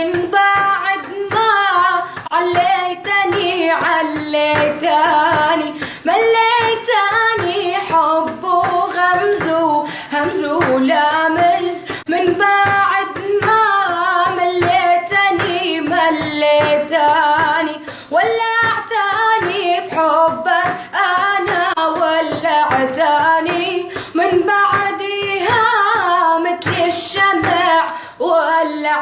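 A female voice singing a melody in long phrases, its notes bending and wavering.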